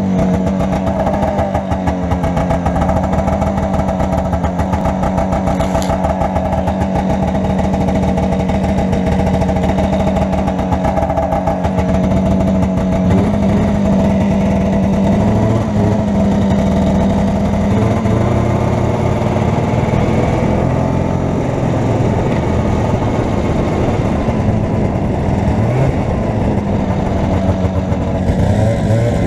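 Arctic Cat Jag 440 Deluxe snowmobile's two-stroke engine running steadily, its pitch shifting up and down a few times in the second half.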